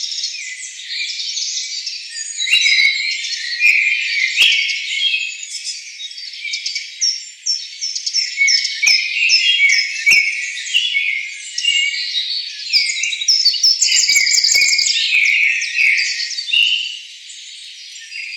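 Dense chorus of many forest birds chirping and calling at once: a continuous tangle of short, high, overlapping notes and quick pitch glides, with a few faint clicks scattered through.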